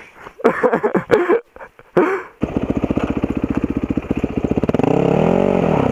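Single-cylinder dirt bike engine idling, cutting in suddenly a little over two seconds in, with one quick rev near the end that rises and falls in pitch.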